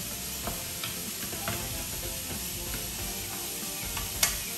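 Sliced smoked meat sizzling in a hot frying pan while a wooden spatula stirs it, with scattered clicks of the spatula against the pan and one louder knock near the end. The meat is frying close to burning.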